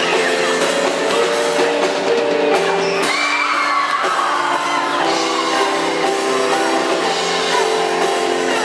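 Live band playing a song with singing, with some whoops and shouts among the voices.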